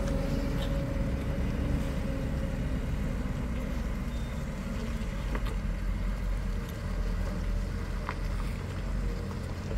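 Tata tipper truck's diesel engine running as it drives, a steady low rumble.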